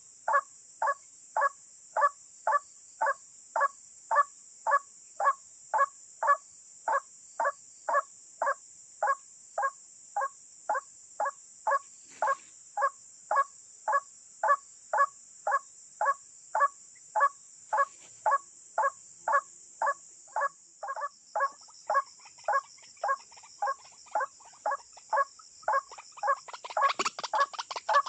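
White-breasted waterhen calls repeated at an even pace of about two a second, with a steady high-pitched buzz underneath. In the last second or two the calls come faster and louder, overlapping.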